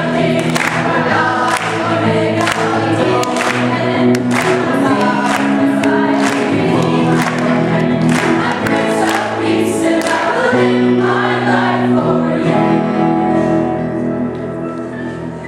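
Choir singing, as closing music, fading out near the end.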